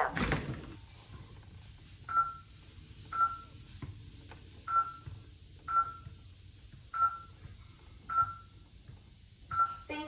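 eufy Security Smart Lock Touch beeping during fingerprint enrollment: seven short beeps of one pitch, roughly one a second, each one as a finger press on the fingerprint sensor is read.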